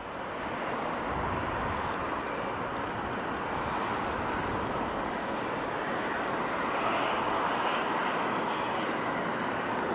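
Pair of ÖBB class 1144 electric locomotives working a freight train up a snowy mountain grade. A steady running noise with faint high squealing comes from the wheels slipping continuously on the slippery rails (macro-slip).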